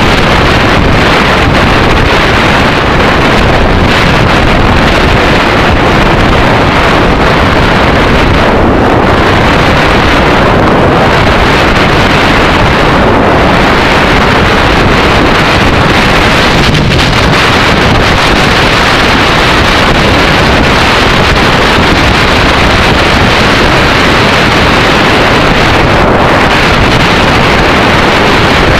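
Loud, steady wind noise on the microphone of a camera riding on a motorcycle at road speed, mixed with the running of the Yamaha XT600E's single-cylinder engine.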